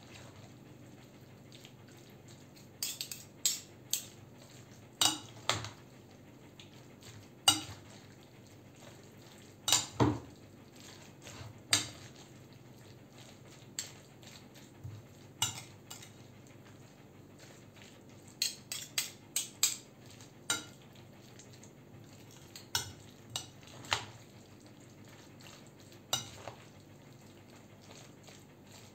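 Metal utensils clinking and scraping against a glass bowl while a yogurt-dressed salad is stirred and tossed. The clinks come irregularly, sometimes several in quick succession.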